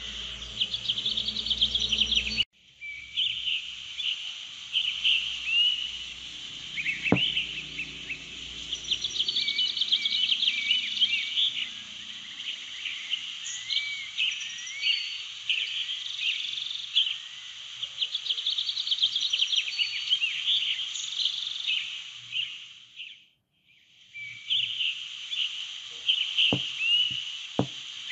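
Birdsong: many small birds chirping and trilling over a steady hiss, cutting out abruptly for a moment about two and a half seconds in and again near the end.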